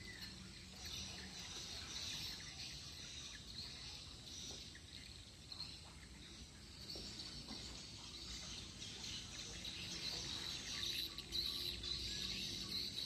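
Faint, steady background of high-pitched chirping, growing a little louder near the end.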